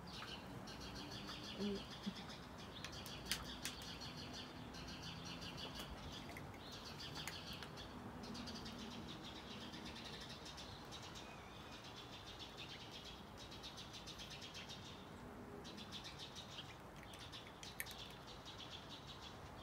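Small birds chirping faintly, in runs of rapid chirps, with a few sharp clicks here and there.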